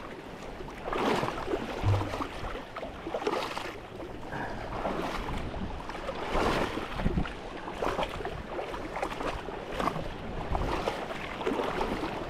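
Sea water splashing and sloshing in irregular surges as a person wades through deep water among rocks, with wind noise on the microphone.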